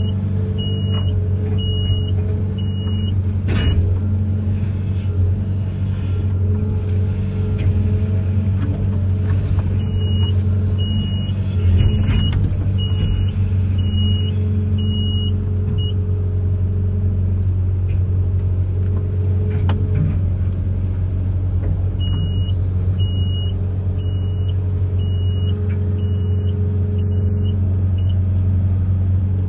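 Amphibious excavator's diesel engine running steadily, with a high-pitched warning beeper pulsing in three spells and a few knocks from the machine working.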